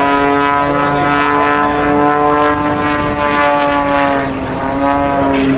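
Single-engine propeller aerobatic plane flying overhead: its engine and propeller make a loud, steady buzzing drone whose pitch dips slightly about four seconds in and then comes back.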